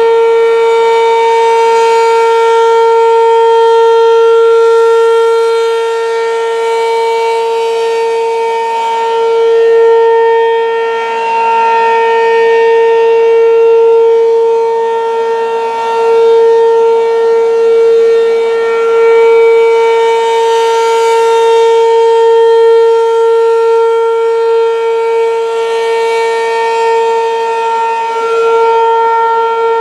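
American Signal RM-127 outdoor warning siren sounding the steady Alert signal: one loud held tone with overtones, swelling and fading in loudness every several seconds.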